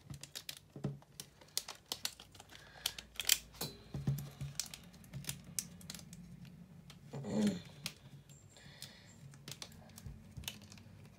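Irregular small clicks and taps of an OtterBox phone case's hard plastic shell and rubber outer layer being pressed and snapped together by hand.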